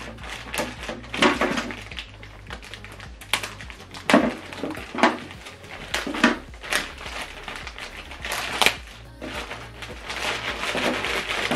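A clear plastic bag of cables and papers crinkling and rustling as it is handled and opened, with a few sharp knocks of items set on the table, over soft background music.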